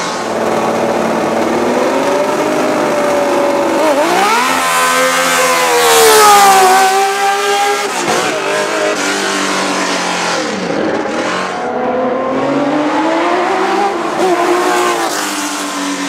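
1972 Tecno PA123/3 Formula 1 car's 3-litre Pederzani 180-degree V12, revving up and down as the car accelerates and lifts off several times. The loudest, highest-pitched rise comes about six seconds in, and another climb follows near the end.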